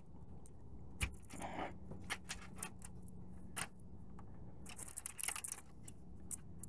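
Spin-on oil filter being unscrewed by hand from a Kawasaki Ninja 300 engine: scattered light clicks and scrapes of handling, with a sharper knock about a second in and a cluster of scraping around five seconds in.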